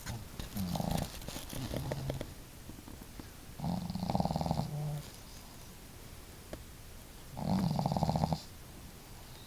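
Pet dogs snoring in their sleep: three snores a few seconds apart, the second and third the loudest.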